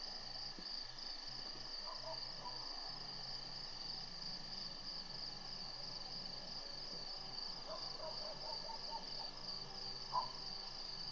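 Steady, high-pitched chorus of night insects, with a few faint short chirps and a brief louder sound about ten seconds in.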